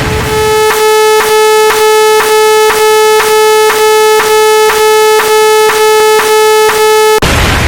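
Synthesized counter sound effects: a steady electronic buzzing tone, with clicks about three times a second. A burst of noise, like a synthetic explosion, comes near the end.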